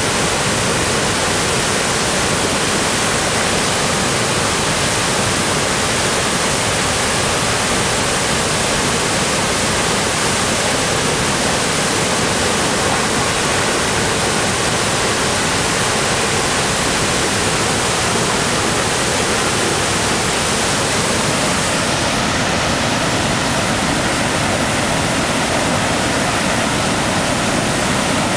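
Tall waterfall on the Pigeon River, Minnesota's highest, plunging into a misty pool: a loud, steady rush and roar of falling water, with a little less hiss over the last few seconds.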